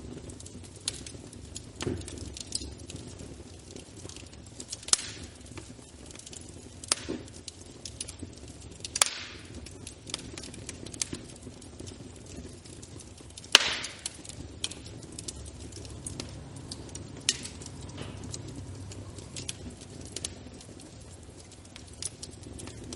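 Wood fire crackling in a fireplace: a steady low rumble of flame with irregular sharp pops and snaps, the loudest a little past halfway.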